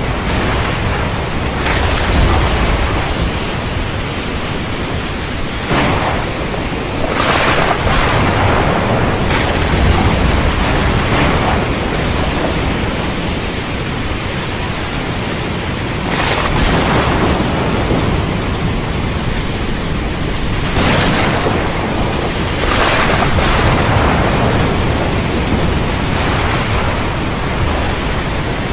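Thunderstorm: thunder crashes again and again every few seconds over a steady rush of rain.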